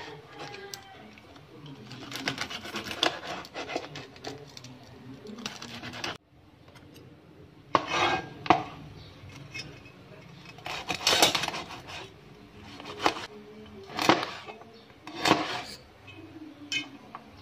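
Knife and cleaver chopping deep-fried pork belly on a cutting board: a quick run of cuts for the first few seconds, then about seven single chops a second or two apart, the blade knocking against the board.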